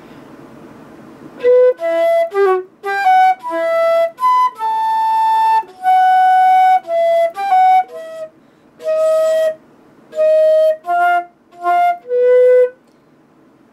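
Haynes Q1 open-hole flute being played: a melodic phrase of separate notes, some short and some held, starting about a second and a half in, with a few brief gaps, and stopping shortly before the end.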